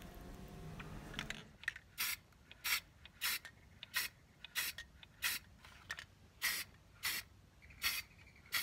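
Aerosol can of enamel spray paint sprayed in short, regular bursts, about one and a half a second.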